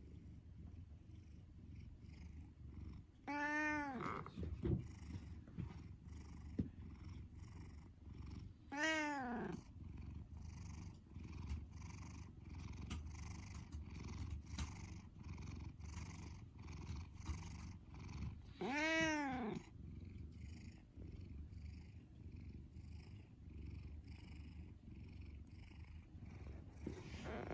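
Domestic cat purring steadily, with three short calls that rise and fall in pitch, about three, nine and nineteen seconds in.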